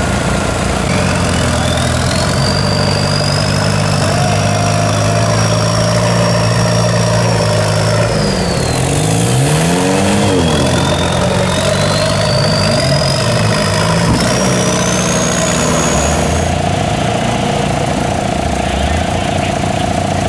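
Off-road 4x4 engines running under load in deep mud, the revs dropping and climbing again about halfway through. Over them a high whine climbs, holds, falls away, then climbs again. The sound changes abruptly near the end.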